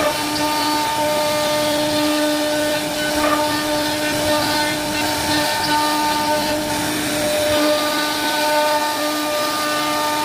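CNC router spindle running with a steady whine as its small end-mill bit cuts grooves into a wooden panel.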